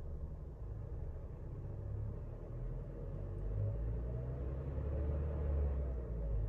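Mercedes-Benz car engine running while the car stands still, heard from inside the cabin: a low, steady idle, then a gentle rev from about four seconds in that lifts the engine note for a couple of seconds before it eases back near the end.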